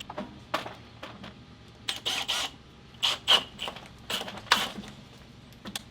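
Irregular clicks and short rattling noises from a cordless hammer drill being handled and made ready for drilling, coming about a second apart.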